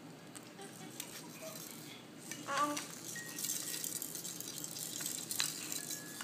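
Baby toys rattling and clinking as a baby handles them in a bouncer seat, with a short baby squeal about two and a half seconds in.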